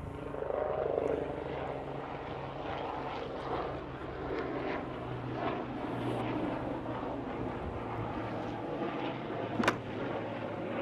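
An aircraft passing overhead: a steady engine drone throughout, with one sharp click near the end.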